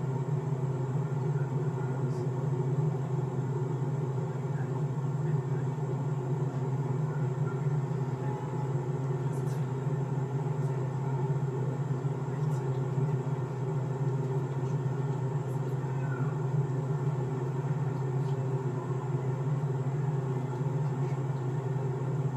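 A steady low hum from a car idling while stopped in traffic, unchanging throughout.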